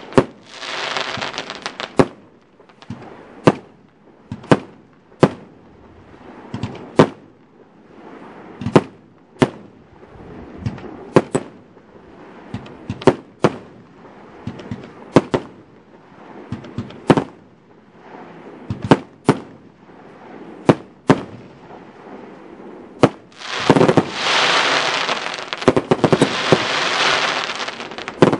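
A steyrFire Party Power 207 consumer firework battery firing shot after shot: sharp bangs about once a second, each launch and burst followed by fizzing and crackling stars. Near the end a dense, continuous crackle of many bursting stars takes over for several seconds.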